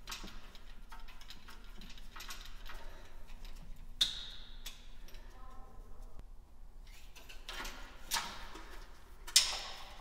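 Small metallic clicks and taps of a screw and hand tool while the retaining screw for a replacement crankshaft position sensor is threaded in with a magnet-tipped tool. There is a sharp, ringing click about four seconds in, and the loudest tap comes near the end.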